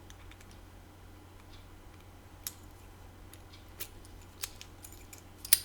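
Key being worked into a padlock and turned to open it: a few sparse, sharp metallic clicks, the loudest a quick double click near the end.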